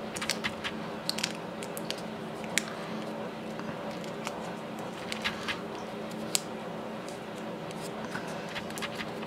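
Irregular small crinkles and sharp ticks of tape being handled and wrapped around a pinball coil, over a steady low hum.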